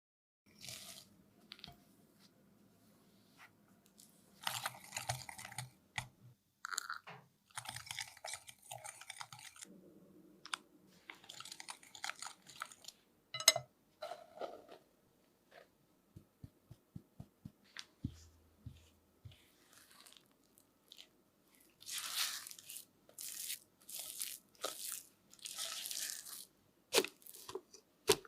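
Kitchen handling noises from making cookies: irregular bursts of rustling, crunching and scraping, broken by sharp clicks and knocks, with one loud click about halfway and a quick run of light ticks soon after.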